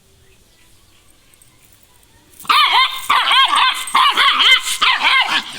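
A pet dog barking territorially: after a quiet start, a rapid, loud string of barks begins about two and a half seconds in and keeps going, several barks a second.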